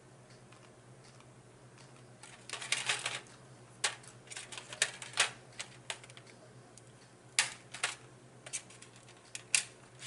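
Close-up eating sounds: chewing with irregular sharp clicks and crackles, starting a couple of seconds in.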